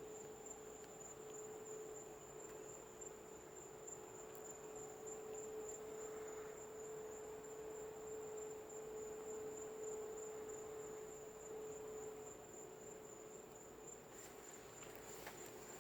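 A faint, steady hum on one mid-low pitch, with a constant thin high whine above it; the source of the hum is unidentified. Near the end a few short high chirps begin.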